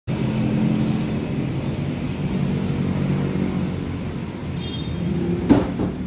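A steady low rumble throughout, with a single sharp knock near the end.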